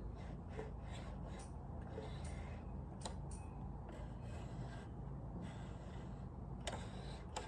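A few light clicks and small rubbing sounds of sewing machine parts being handled during cleaning and reassembly, over a steady low hum.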